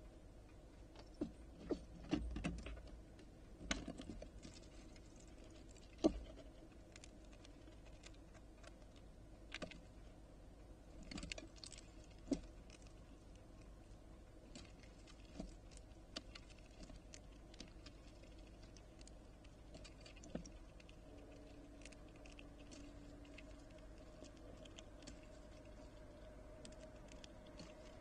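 Ezo squirrel at a wooden feeder tray: irregular sharp clicks, taps and scrabbles of claws and seed on wood, thickest in the first few seconds and sparser later.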